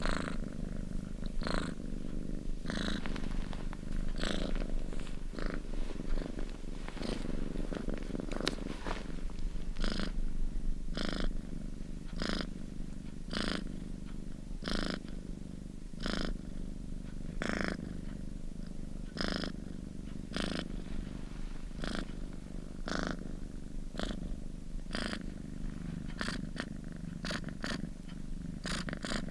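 Domestic cat purring steadily, a continuous low rumble with a regular pulse roughly once a second.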